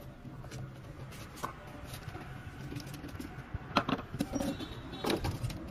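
A few light knocks and scrapes as a metal bar is poked in among bricks and stones: one about a second and a half in, then a cluster near the end. A faint steady low hum runs underneath.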